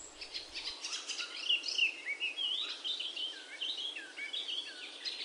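Small birds chirping: a busy run of short up-and-down chirps over a faint hiss.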